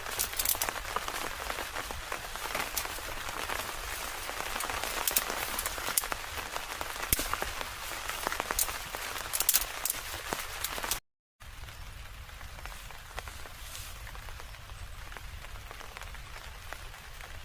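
Steady rain falling, with many separate drops ticking through the hiss. About two-thirds of the way in the sound cuts out for a moment, then the rain goes on more softly.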